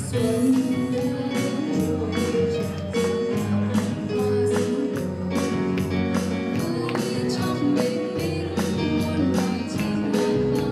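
Live pop band playing an upbeat song: a strummed acoustic guitar keeps a steady beat under electric guitar and keyboard, with a woman singing.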